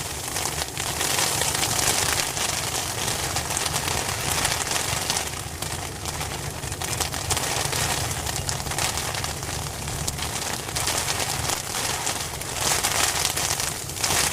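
Hail pattering on an umbrella: a dense, continuous rattle of small hailstones striking the canopy, swelling and easing in waves, then cutting off abruptly at the end.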